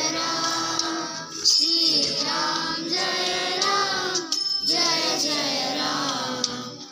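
A group of children singing a Hindu devotional song (bhajan) together in unison, with a jingling hand percussion keeping time. The singing comes in phrases with short breaks about a second and a half in and again after about four seconds.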